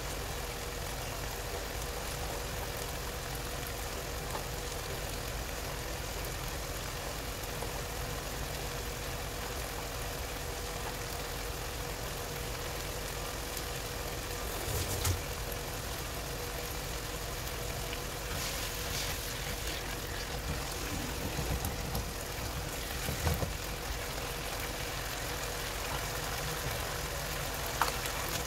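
A kitchen fan runs with a steady hum and a thin, constant tone. A few faint knocks come about halfway through and again later.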